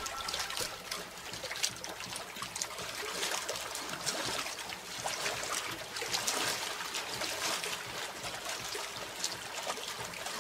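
Water trickling and lapping close by, with many small crackling drips and light knocks as sea kayaks are slid in and boarded at the water's edge.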